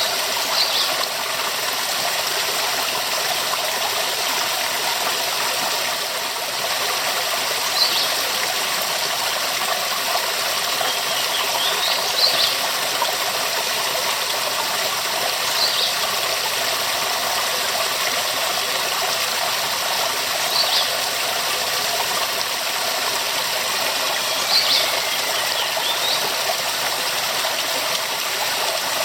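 Waterfall: a steady rush of falling water, with faint short high chirps every few seconds.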